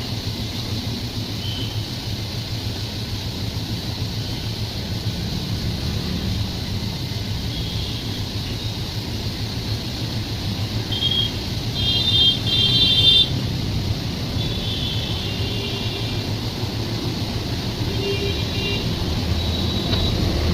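A running train's steady low rumble, with short high-pitched squeals breaking in now and then, the loudest about twelve seconds in.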